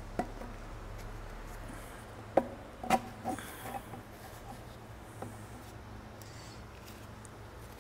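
A few light clicks and knocks from handling a plastic engine-oil bottle and funnel at a motorcycle's oil filler, over a steady low hum.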